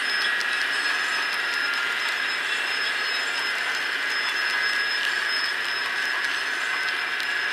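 HO-scale model freight cars rolling past on the track: a steady rolling rush with a thin high squeal and faint clicks.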